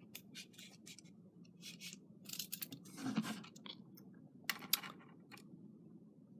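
Handling noise: a scattered series of short scrapes and clicks as a measuring tool is held and shifted against a small plastic portable radio's speaker grille, the longest scrape about three seconds in.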